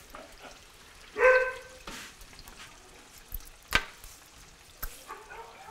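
A dog barks once, a short bark about a second in. After it come a few sharp knocks, the loudest near the four-second mark.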